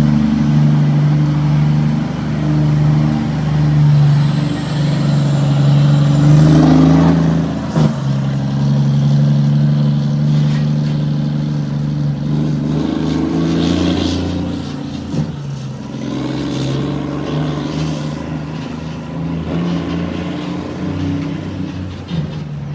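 Volvo FH truck's inline-six diesel engine rumbling steadily, with a deep, even engine note. It swells about six seconds in and eases off in the second half, with a brief sharp sound about eight seconds in.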